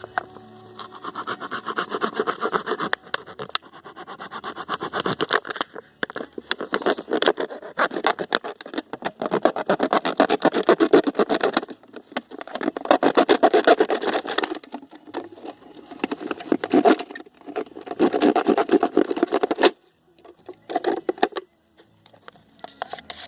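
Thin PET plastic bottle being cut and handled: rapid crackling and scraping in bursts of a few seconds, with short pauses between them and a quieter stretch near the end.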